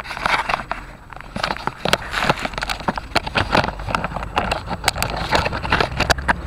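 Irregular knocks, clicks and scrapes of a small camera being handled and slid about under a car, over a low steady rumble.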